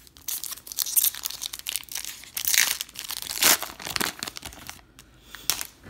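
The crimped foil wrapper of a 2018 Bowman baseball card pack being torn open by hand: dense crinkling and tearing, loudest midway. It dies down after about four seconds, with one more brief crinkle near the end.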